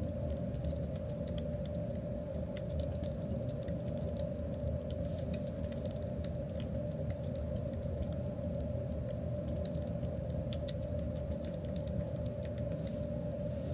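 A steady low rumble with a constant hum, overlaid by light, irregular clicking throughout.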